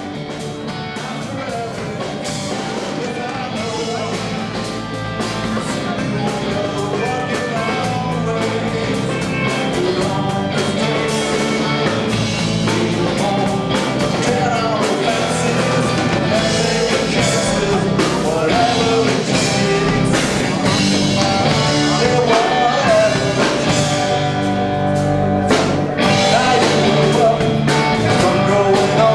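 Live blues band playing: amplified harmonica over electric guitar, bass and drum kit. It grows gradually louder over the first several seconds as the recording fades in.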